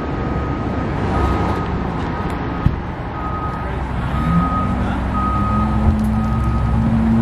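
Reversing alarm beeping about once a second, each beep a single high tone about half a second long, over the steady rumble of a running vehicle engine whose note rises about four seconds in.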